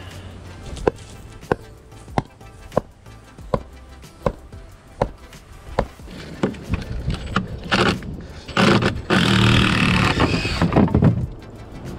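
A run of about eight sharp knocks, evenly spaced a little under a second apart, then loud rustling and crackling of dry tree branches close by for a few seconds near the end.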